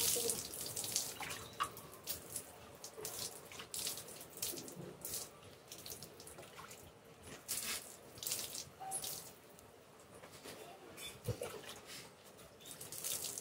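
Water poured from a mug over a calf's back, splashing and dripping onto a concrete floor in short, irregular bursts.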